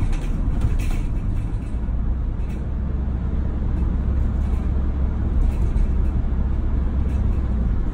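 Steady low rumble of a van driving on a highway, heard from inside the cabin.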